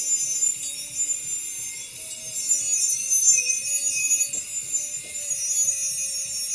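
Continuous abrasive rubbing and scraping on the spare wheel, as in sanding off rust and old finish, with uneven strokes.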